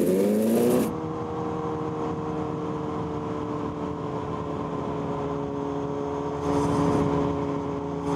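A Honda CBR1000RR's engine revving, its pitch climbing, cut off under a second in. Then a motorcycle engine holds a steady note at highway cruising speed, with a short louder rush of noise about six and a half seconds in.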